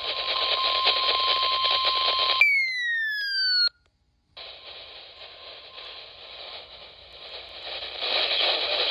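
NOAA Weather Radio broadcast of a flash flood warning heard through heavy static from a weak, patchy signal. The 1050 Hz warning alert tone holds steady for about two seconds, then breaks off into a falling electronic tone. After a brief dropout to silence, the hissing static returns.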